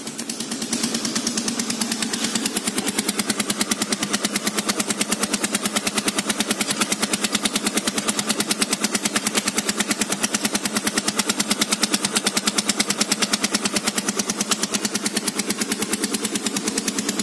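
Yamaha Nouvo Z scooter's single-cylinder four-stroke engine idling, fading in over the first second, its exhaust puffing in fast, even pulses. The exhaust neck (header pipe) where it joins the muffler is rusted through and leaking.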